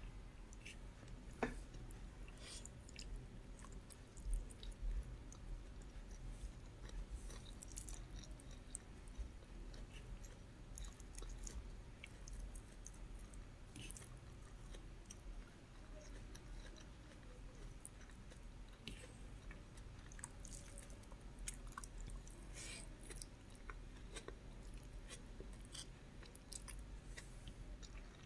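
A person chewing and biting a mouthful of rice, bacon, scrambled egg and garlic close to the microphone, with irregular small crunches and clicks.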